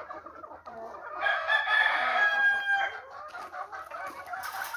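A gamecock crowing once, starting about a second in and holding for nearly two seconds, its pitch sinking slightly toward the end.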